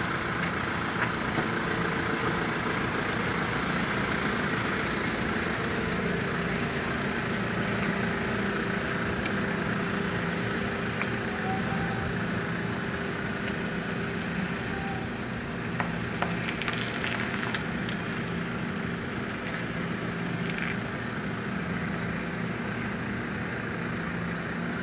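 A steady machine hum with a few faint clicks.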